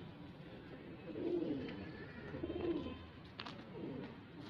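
Domestic pigeons cooing softly, three low coos spread over a few seconds.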